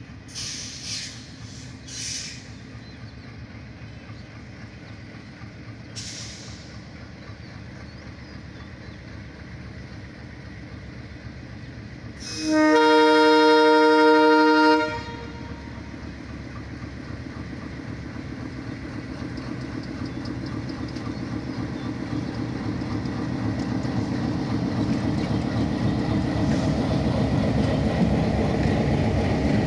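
Diesel locomotive of a passenger express train sounding its horn, a chord of several tones held for about two seconds midway. Under it runs the engine and wheel rumble, growing steadily louder as the train draws near and passes close by with its coaches.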